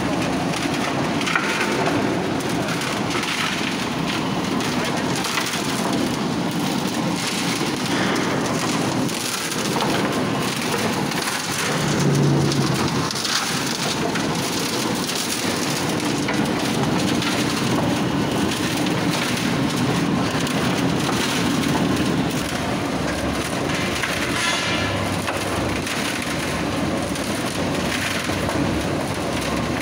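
Reversible concrete drum mixer running, with aggregate and concrete churning and rattling inside the rotating drum as a steady, dense noise.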